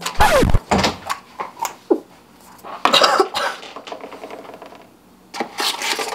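A woman coughing in a few short bursts, with a brief falling vocal sound near the start and a few light clicks in between.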